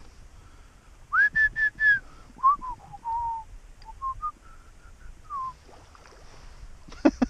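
A run of clear whistled notes: four loud notes on one pitch, then a string of shorter, lower notes that slide up and down. A couple of sharp knocks come near the end.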